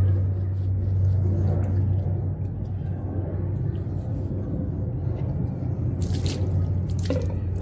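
A steady low hum throughout, with faint wet rubbing and dripping as a soaked dog's coat is scrubbed by hand; a short burst of splashing noise comes about six seconds in and again about a second later.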